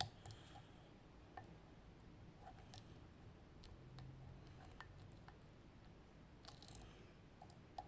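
Faint, scattered small metallic clicks of a lock pick working the pin stacks of an ASSA Maximum+ Restricted pin-tumbler cylinder under tension, with a short cluster of clicks about six and a half seconds in.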